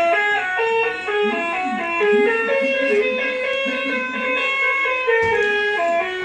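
Music: a melody of held notes stepping from pitch to pitch, over a lower repeating swooping figure.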